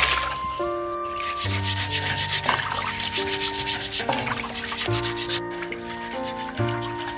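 Metal scouring pad scrubbing the charred skin of a singed pork leg in a basin of water, in quick repeated strokes, over background music.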